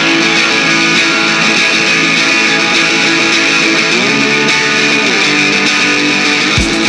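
Live band opening a song on electric guitar: sustained chords ring on, sliding to new chords about four seconds in, and steady kick-drum beats come in near the end.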